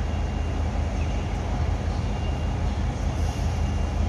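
A steady low rumble, strongest in the deep bass and fluttering unevenly, with no distinct events.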